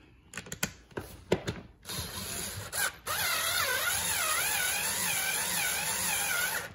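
Cordless electric screwdriver driving a screw through a chair armrest into the seat back. A few handling clicks come first, then a short run about two seconds in, then a steady motor whine with a wavering pitch from about three seconds on.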